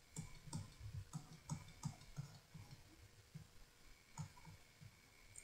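Faint light clicks of a pointing device, about three a second and then one more about four seconds in, one for each short slanted stroke drawn on screen.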